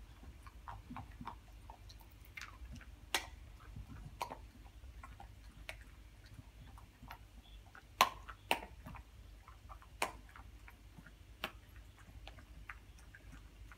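A Staffordshire bull terrier and a cat chewing and licking at food on a carpet: irregular small wet clicks and smacks, with a few sharper, louder clicks scattered through.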